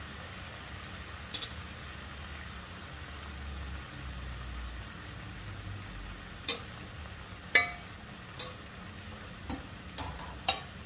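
Chicken pieces sizzling as they fry in a pan, with several sharp clinks of a utensil against the pan, the loudest a little past the middle.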